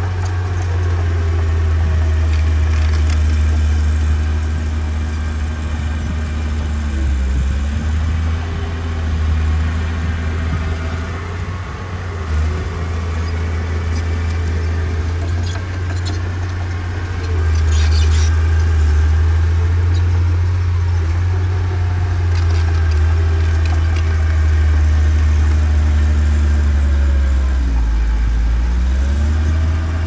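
Diesel engine of a small crawler bulldozer running steadily while it works. Its pitch dips and recovers twice, about a quarter of the way in and again near the end. A few brief high-pitched noises come just past the middle.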